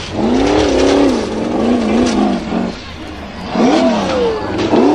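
Formula Offroad hill-climb buggy's engine revving hard, its pitch swinging up and down in repeated swells as the throttle is worked, with a dip about three seconds in and a sharp rise near the end.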